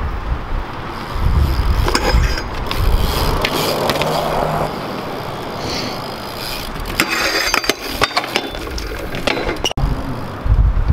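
BMX bike rolling over concrete, its tyres giving a rough rolling noise, with several sharp knocks and clatters from the bike about two seconds in, around seven seconds, and near the end.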